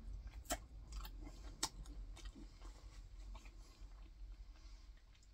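A person chewing a mouthful of food close to the microphone: soft, irregular mouth clicks, a couple of them sharper about half a second and a second and a half in.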